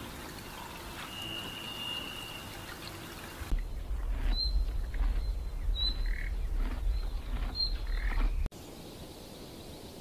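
Steady hiss of flowing water with a single held, high bird whistle about a second in. Then a deep low rumble with three short, high bird chirps begins, and it cuts off suddenly after about five seconds.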